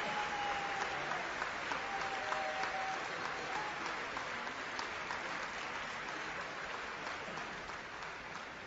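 Audience applauding steadily, the clapping slowly dying down toward the end.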